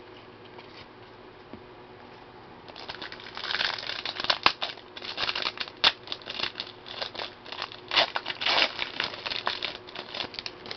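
A baseball card pack wrapper crinkling and crackling as it is handled and torn open, starting about three seconds in and going on with sharp crackles until near the end.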